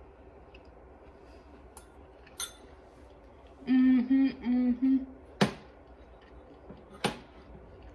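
A woman hums a few short "mm" sounds of enjoyment with her mouth full of food, then a metal fork clinks twice against a ceramic bowl.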